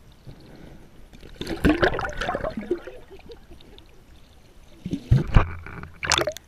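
Water sloshing and gurgling around a submerged action camera, in two bouts of splashing: one about a second and a half in, and another around five seconds as the camera breaks the surface.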